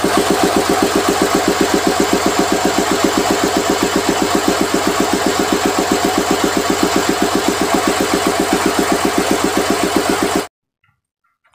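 Isuzu six-cylinder diesel engine idling with a fast, even pulsing beat, then cutting off suddenly near the end. The engine is said to run hot and rough and to blow white smoke.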